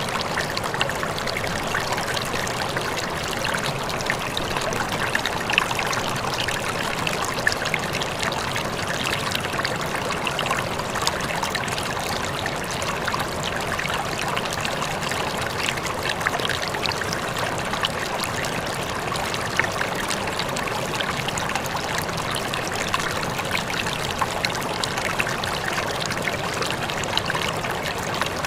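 Small waterfall running steadily: water pouring and trickling onto water with many small splashes.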